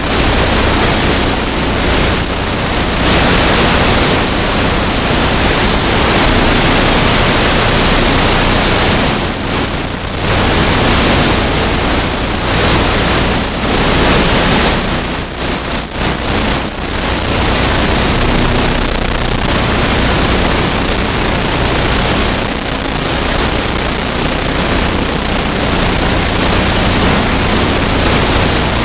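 Loud, steady rushing hiss like static, with a few short dips in level.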